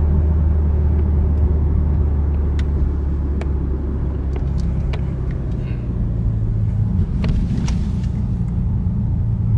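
BMW G80 M3, twin-turbo inline-six, heard from inside the cabin while driving: a steady low engine and road drone, its note shifting slightly higher about six seconds in, with a few faint clicks.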